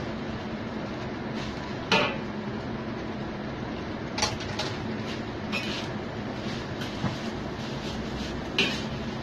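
Metal spatula clinking and scraping against a wok while stir-frying noodles and bean sprouts: about six sharp clinks at irregular intervals, the loudest about two seconds in, over a steady background noise.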